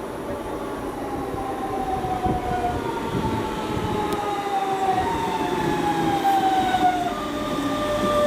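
A DB Class 425 electric multiple unit slowing down: several high whining tones fall steadily in pitch over a rail rumble that grows louder as it approaches.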